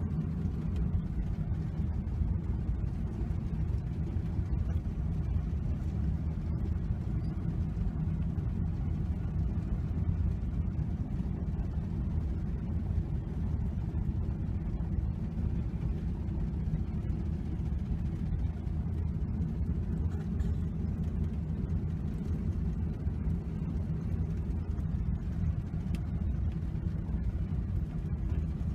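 Steady low rumble of engine and road noise from a vehicle driving along, heard from inside the cabin.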